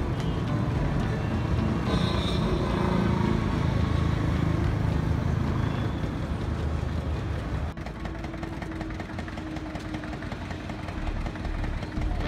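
Road traffic noise: a steady motor-vehicle rumble from the highway, dipping briefly about eight seconds in.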